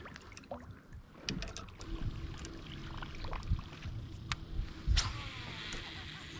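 Kayak paddling: paddle strokes in the water, with scattered light knocks of the paddle and gear against the plastic hull and a dull thump about five seconds in.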